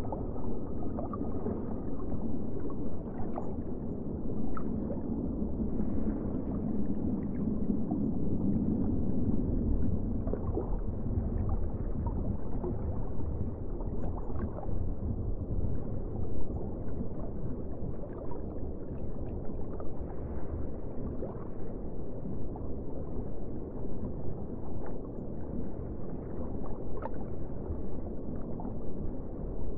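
Underwater ambience: a low, muffled rush of water with scattered small bubbling pops and gurgles, swelling a little fuller in the first ten seconds or so.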